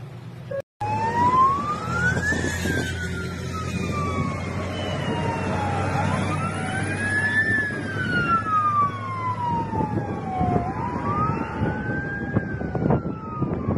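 Airport crash-rescue fire truck sirens wailing in slow rising-and-falling sweeps that start about a second in and overlap one another. A steady engine drone runs underneath.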